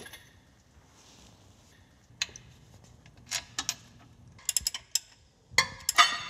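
Scattered sharp metal clicks and clinks as a bolt is fitted into a Toyota Land Cruiser gearbox housing. A quick run of clicks comes past the middle, and louder knocks come near the end.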